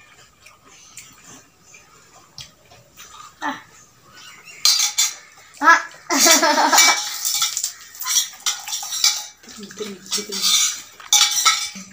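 Stainless-steel spoon clinking and scraping against a steel bowl of pani puri water. Small clicks at first, then a run of sharper, louder clinks and clatters from about the middle on.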